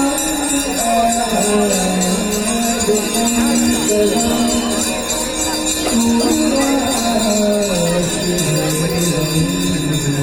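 Music with a constant jingling shimmer like bells or a tambourine over a slow melody that steps from note to note and sinks lower toward the end.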